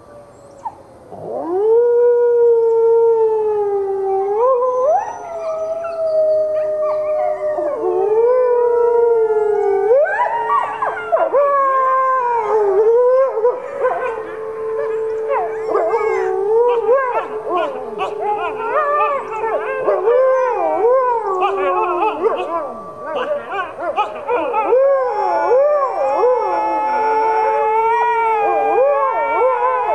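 Wolf pack howling: red wolves joined by gray wolves. A single long, steady howl starts about a second in, and more voices join around eight to ten seconds in. It builds to a chorus of many overlapping howls sliding and wavering in pitch, with short rising-and-falling notes among them.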